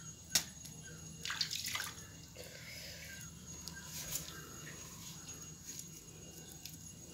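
Faint wet squelching, rustling and small clicks of hands handling and plucking the feathers from a wet chicken carcass, with a sharp click about half a second in and a longer wet rustle a little after a second.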